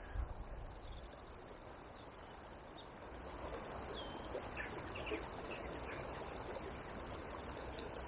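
Quiet riverside ambience: a faint haze of flowing water with a few short bird chirps around the middle, and a brief low rumble on the microphone near the start.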